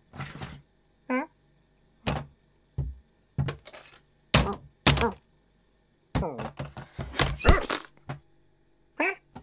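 Cartoon sound effects of a cat handling a heavy clothes iron on a kitchen bin: a series of single thuds and knocks, then a burst of bangs and clatter from about six seconds in as the iron falls and the bin lid swings open. A short vocal squeak from the cat comes about a second in, and another near the end.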